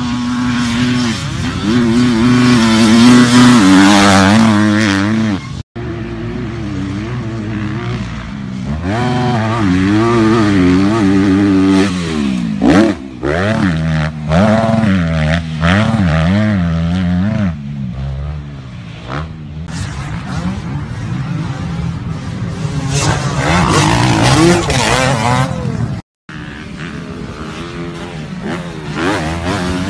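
Dirt bike engines revving, the pitch climbing and falling repeatedly as riders work the throttle. The sound breaks off abruptly twice.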